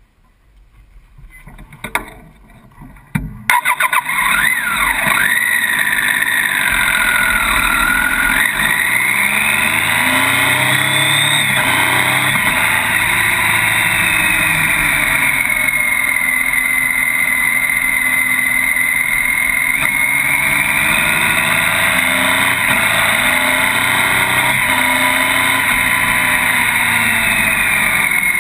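Motorcycle riding downhill, heard from low beside the front wheel. For the first few seconds it is quiet with a few clicks. Then, about three and a half seconds in, loud engine and wind noise set in and hold steady, with a whine that rises and falls slowly as the speed changes through the bends.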